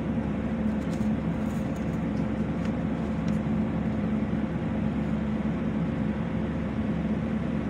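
Pool pump motor running with a steady hum, pulling suction through a manual vacuum hose to lift settled dirt off the pool floor.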